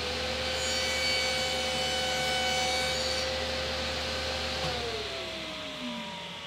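Table saw running at full speed and cutting through plywood stood on edge against the fence: the first, vertical pass of a rabbet. The cutting noise lasts about three seconds. The saw is then switched off about four and a half seconds in, and its whine drops in pitch as the blade spins down.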